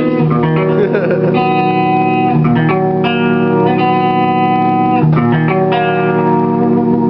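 Electric guitar playing a progression of chords, each one left to ring, changing every second or so.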